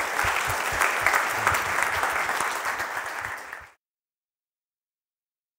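Audience applauding, a dense patter of many hands clapping, which fades slightly and then cuts off abruptly after about three and a half seconds.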